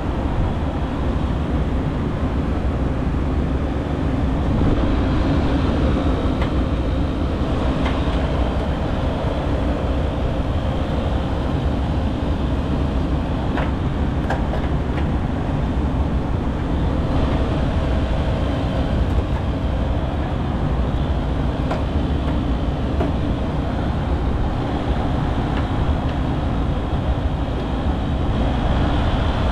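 Steady low mechanical rumble of neighbouring packaged HVAC units running, with a faint hum through it and a few faint clicks as wire connectors are pulled from a controller board.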